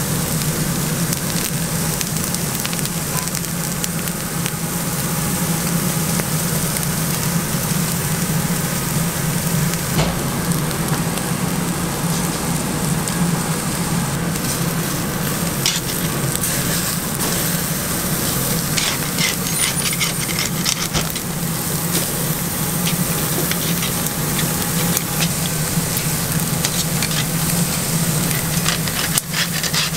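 Thick tomahawk and T-bone steaks sizzling on a hot grill grate over live fire: a steady sizzle with scattered sharp pops and crackles, over a steady low hum.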